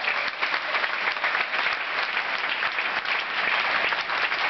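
Spectators applauding a won point in a badminton rally: a dense, steady patter of many hands clapping.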